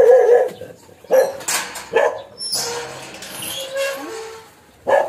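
Dog barking several times, with a wavering drawn-out cry at the start.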